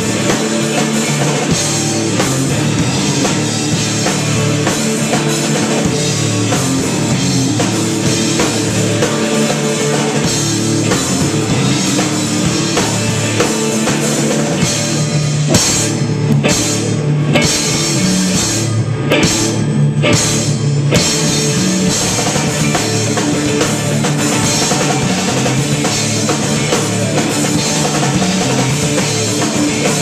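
Live rock band playing: distorted electric guitars over a drum kit. The cymbals cut out briefly a few times around the middle while the guitars carry on.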